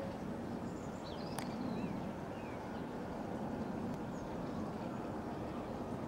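Steady low outdoor rumble with small birds chirping briefly a few times over it, and a single sharp click about a second and a half in.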